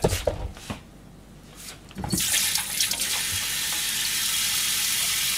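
A few handling clicks and knocks, then about two seconds in a kitchen tap is turned on and runs in a steady stream into a stainless-steel sink.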